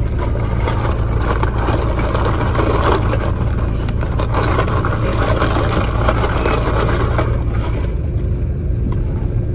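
Plastic straw rattling and scraping through ice in a plastic iced-coffee cup as it is pushed in and stirred, stopping about three-quarters of the way through. Under it, the steady low hum of a car engine idling.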